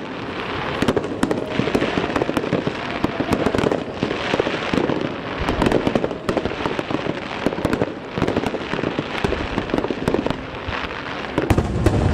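Aerial fireworks bursting in a dense barrage: a continuous mass of sharp pops and crackles, with heavier low booms near the end.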